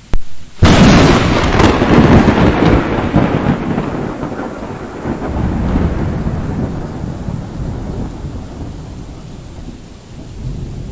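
Thunder: a short crack, then a loud clap that rolls into a long rumble fading over several seconds, swelling again about six seconds in and once more near the end, over a steady hiss of rain.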